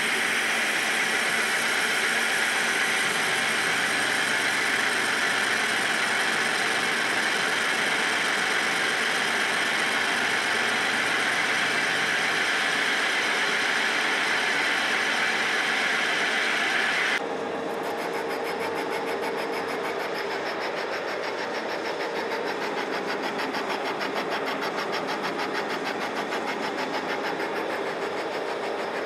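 Metal lathe cutting a cast iron part: a steady hiss of the tool facing the spinning workpiece. A little past halfway it changes abruptly to a boring cut inside the bore, quieter, with a steady hum and a fast flutter.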